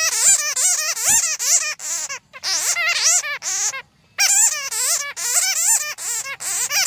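Bats squeaking and chattering in rapid runs of short, high chirps that rise and fall in pitch, with brief breaks about two seconds in and about four seconds in.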